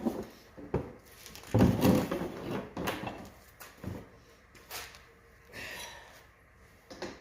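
Irregular knocks, thumps and rustling of hand work on an ATV seat, fitting a blanket cover over the foam and seat pan; the loudest thump and rustle come about two seconds in.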